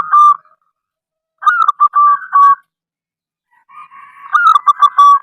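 Zebra dove (perkutut) cooing: three phrases, each a quick run of short coos that ends on a longer note. The first phrase is finishing as the clip begins, the second comes about a second and a half in, and the last starts softly and grows louder near the end.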